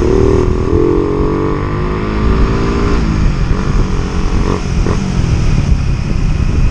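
Suzuki Raider 150 Fi's single-cylinder four-stroke engine running at steady cruising revs, heard over heavy wind buffeting and road noise on a helmet microphone. The engine note eases down and sinks under the wind about three seconds in.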